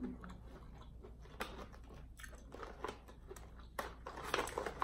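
Close-up chewing of seafood-boil food, a run of small wet clicks and crunches. About four seconds in, a denser cluster of crackles as fingers pick up crawfish from the foil pan.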